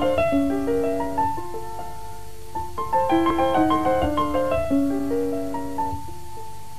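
Piano playing the instrumental opening of a song: quick cascades of notes running downward, then a pause on held notes. A second, similar cascade starts about three seconds in and settles onto a long held high note near the end.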